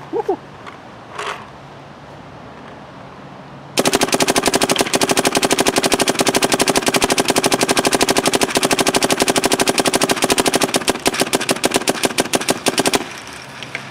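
Dye M3+ electronic paintball marker firing a long, rapid, even string of shots, starting about four seconds in and stopping about a second before the end.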